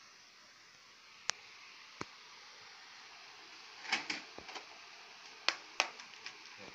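Sharp clicks and light taps from tools and small parts being handled on a repair bench: two single clicks, then a quick cluster about four seconds in, and the two loudest clicks close together near the end, over a steady faint hiss.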